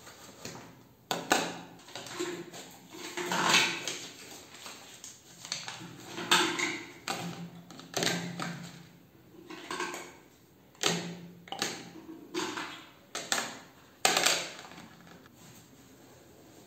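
Plastic toiletry bottles, a cup and a plastic basket being set down and shuffled on a stone countertop: an irregular series of knocks, clatters and short scrapes.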